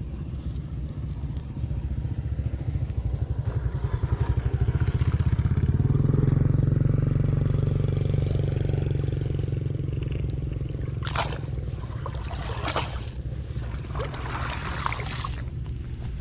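Small motorcycle engine running close by, getting louder over the first several seconds and then easing off. In the second half come a few short splashes and rustles from the cast net in the water.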